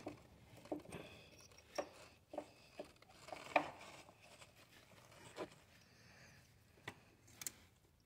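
Faint, scattered clicks and knocks of hard plastic as new ignition coil packs are seated by hand and their wiring connectors pushed on, on a Ford 4.6 V8 with the engine off. There are about ten short clicks, the loudest about three and a half seconds in.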